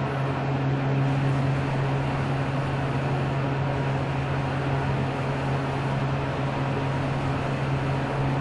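ThyssenKrupp traction elevator car travelling upward, heard from inside the cab: a steady low hum over an even rushing noise of the ride and cab fan.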